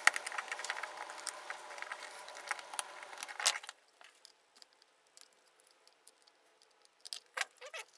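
Flush-cut nippers snipping and crunching away PLA support material on a 3D-printed part. A run of small crackling clicks lasts for the first few seconds; after that there are only scattered ticks, with a few sharper snips near the end.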